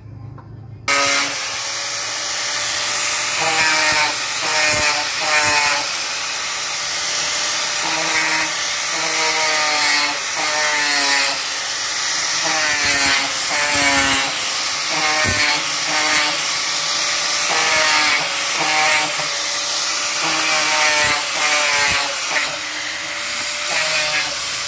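Electric angle grinder running and grinding the rim of a wooden wheel: a steady high motor whine over loud grinding noise, starting abruptly about a second in, its pitch dipping again and again as the disc is pressed into the wood.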